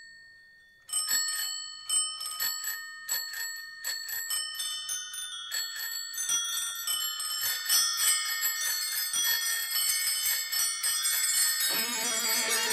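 Bicycle bells ringing as the bell interlude of a rock song. After a short pause come single rings about half a second apart, which quickly pile up into a dense jangle of many bells at different pitches. Near the end the band's guitars come back in.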